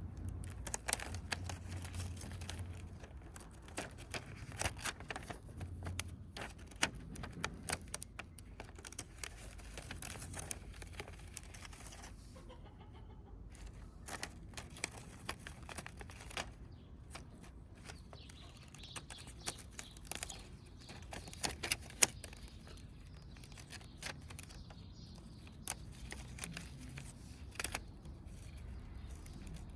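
Irregular clicks, ticks and rustling, as of small plastic parts being handled and fitted together, over a low steady rumble.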